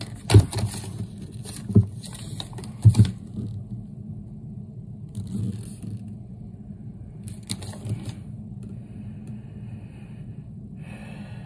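Small plastic toy pieces and packaging handled on a tabletop, with a paper collector's guide leaflet rustling as it is looked through. There are a few sharp taps and knocks, the loudest about half a second in, with short rustles between them, over a steady low hum.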